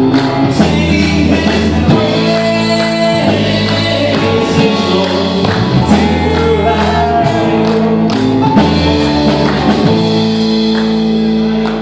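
Live gospel band playing on banjo, acoustic guitars and piano, with voices singing.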